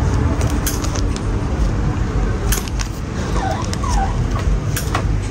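Steady low rumble with a few sharp clicks and taps scattered through it.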